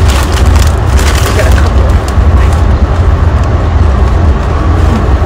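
Steady heavy low rumble inside a moving passenger train car, with a chip bag crinkling now and then.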